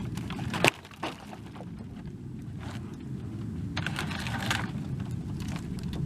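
Sawmill slab wood being pulled down off a pile: a sharp wooden knock about half a second in, a fainter knock just after, and a scraping rustle around four seconds in, over a steady low rumble.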